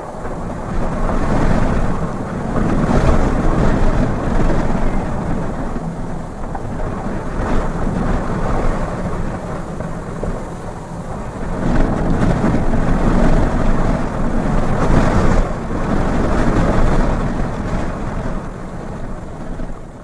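Twin-engine jet airliner's engines rumbling loudly as it rolls down the runway, the noise swelling and easing in gusts of strong wind.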